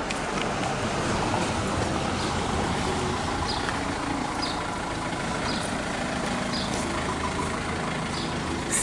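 City street traffic: a steady rumble of engines and road noise from passing and idling vehicles, with faint light ticks about once a second.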